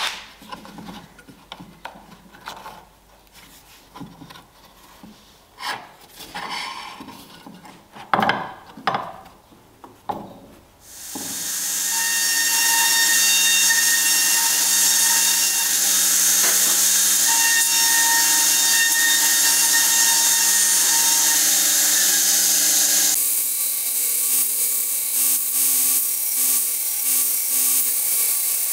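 Small knocks and rubbing as a wooden knife handle with metal spacers is handled on a metal plate, then a belt sander starts up and runs steadily, grinding the wooden handle and its metal bolster against the belt. Near the end the grinding sound drops suddenly to a lighter, quieter note.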